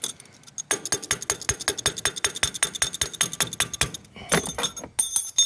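Rapid tapping on the Honda PCX scooter's engine control unit, about nine taps a second with a light metallic clink, then a short scuffing burst and a few more taps near the end. The taps are meant to jolt a failing ECU into letting the engine start.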